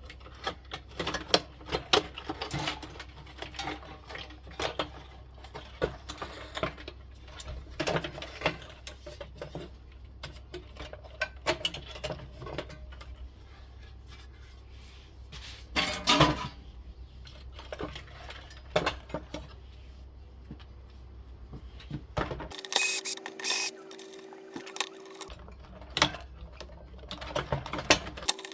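Irregular metallic clinks, taps and knocks of hand tools and parts being handled while an industrial air-conditioner unit is taken apart, with a louder clatter partway through. A steady low hum runs underneath and drops out for a few seconds near the end.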